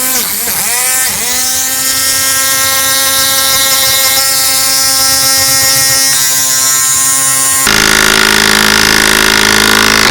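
Cordless half-inch mid-torque impact wrench hammering continuously as it drives a 16-inch by 3/4-inch lag bolt. Its pitch wavers for about the first second, then holds steady, changes a little near the end, and cuts off suddenly as the trigger is released.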